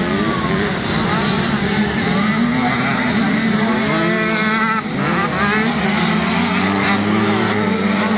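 Off-road race engines from motocross bikes and quads revving as they ride past, several at once. Their pitch rises and falls, most clearly about halfway through.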